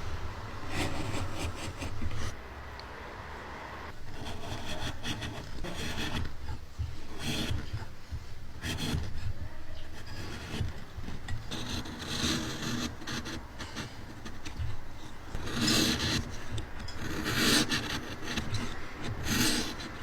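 A hand tool scraping and rubbing across wood in irregular strokes, roughly one every second or two, with a steady low hum underneath.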